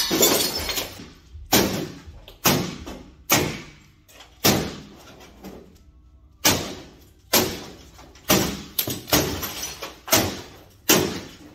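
A hatchet smashing an old CRT television set: about a dozen sharp, heavy crashes at irregular intervals, each ringing on briefly. The first crash is the longest.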